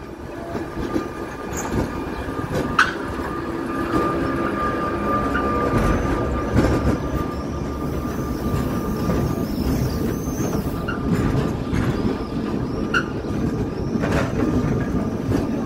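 Old wooden electric tram cars of the Sóller tramway rolling slowly past on a curve. Steel wheels rumble on the rails with a steady thin whine, squeal high in the middle, and give a few sharp clanks.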